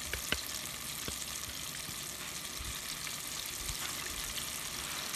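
Food frying in hot oil in a deep-fryer pot, a steady sizzling hiss throughout, with a few light clicks in the first second or so.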